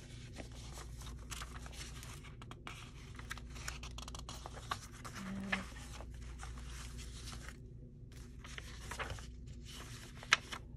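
Paper being handled at a craft table: rustling and crinkling with light taps and clicks, and one sharper tap near the end.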